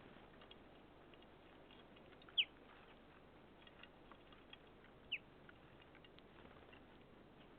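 Small songbirds feeding: faint scattered ticks and pattering, with two short high calls sliding downward, one about two and a half seconds in and another about five seconds in.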